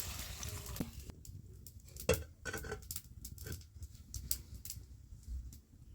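Vegetables sizzling in oil in a kadai, stopping about a second in, followed by scattered light clinks and knocks, the loudest about two seconds in.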